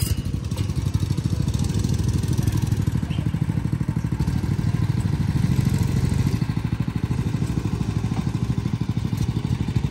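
Small go-kart engines running, a steady low pulsing drone.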